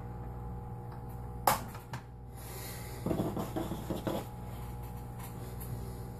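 Hands in plastic gloves handling a sheet of pasta dough beside a hand-crank pasta machine: one sharp click about one and a half seconds in, then a second or so of rustling and handling noises, over a steady low hum.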